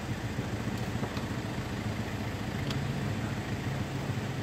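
Car engine idling steadily, a low even hum.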